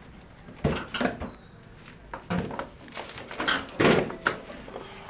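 Kite-string reels (manjha charkhis) knocking and rattling against each other and the metal shelf racks as they are pulled out by hand: about half a dozen sharp knocks, the loudest near four seconds in.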